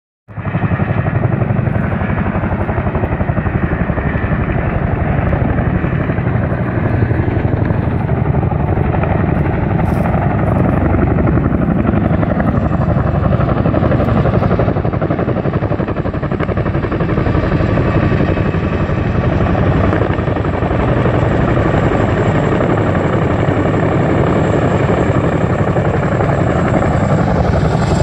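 Several CH-47 Chinook tandem-rotor helicopters flying low overhead: loud, steady rotor chop that does not let up, with a thin high whine coming in about halfway.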